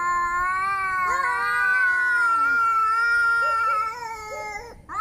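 Angry cat yowling: long, drawn-out caterwauls whose pitch wavers slowly up and down, with a second call overlapping the first about a second in. The calls break off briefly near the end.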